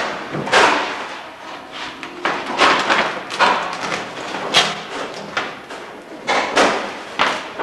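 A run of irregular knocks and thumps, roughly two a second, each with a short noisy tail.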